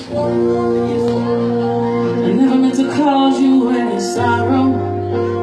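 Live band music with a woman singing into a microphone over held chords; a low bass note comes in about four seconds in.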